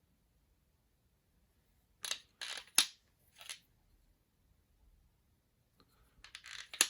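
Small steel W12 collets clinking against each other and the case as they are handled. There are three quick metallic clicks about two seconds in, another near three and a half seconds, and a fast run of clicks near the end, the last one the sharpest.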